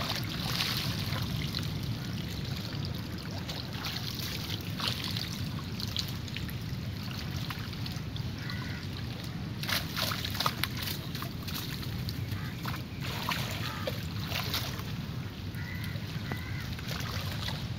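Water sloshing and splashing as men handle a fishing net in shallow river water at the bank, with sharp splashes now and then, several close together about ten seconds in. A steady low rumble runs underneath.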